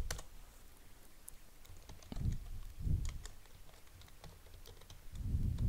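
Computer keyboard typing: scattered, light key clicks, with a few brief low sounds in between, the loudest near the end.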